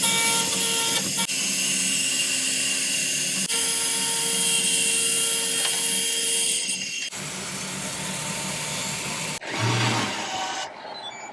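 Motorised tool running steadily, with a continuous hum and hiss. Its sound changes about seven seconds in, and it winds down near the end.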